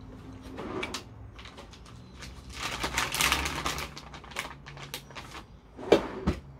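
Close handling sounds at a bowl of cut watermelon: a run of small clicks and taps, a crunchy stretch in the middle, and two sharp knocks near the end.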